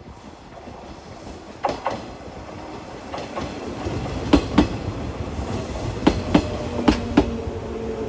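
Shinano Railway 115-series electric train passing close by, its rumble building as it approaches. Wheels clack over a rail joint in quick pairs, a few times, as each bogie goes over it, and a steady hum comes in near the end.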